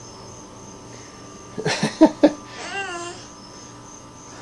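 A few sharp knocks about two seconds in, from the baby handling the wooden kitchen cabinet doors. Just after them, the baby gives a short babbling vocalization that wavers in pitch.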